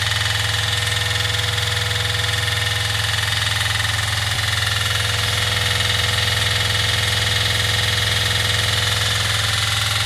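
Volvo Penta inboard marine diesel engine running steadily, heard from inside the engine compartment, with a low, even hum. It drives a propeller shaft line that vibrates and leaks.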